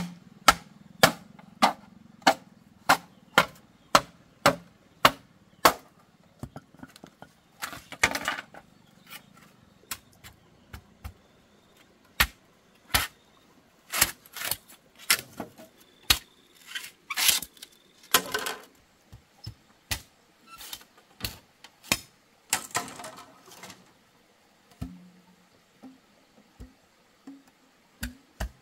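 Machete chopping into green bamboo poles: a steady run of sharp chops about two a second for the first six seconds, then slower, irregular knocks with a few longer, noisier strokes, thinning out near the end.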